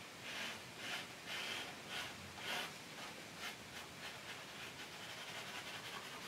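Paintbrush rubbing oil paint onto a stretched canvas in short scrubbing strokes, about two a second, thinning to a faint steady hiss in the second half.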